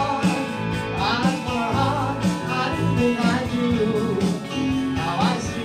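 A rock band playing live: a man singing into a microphone over electric guitar and electronic drums.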